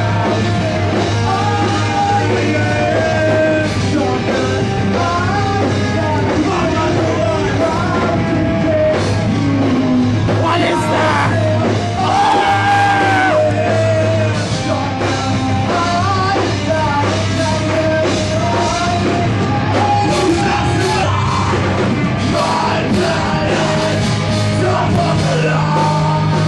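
Loud rock music with a singing voice and some yelling over a steady, heavy bass line.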